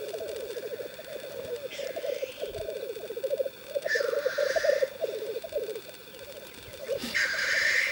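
Male black grouse on a lek giving their continuous bubbling, rapidly pulsed rookooing song. Loud hissing 'tchu-whee' calls break in about four seconds in and again near the end.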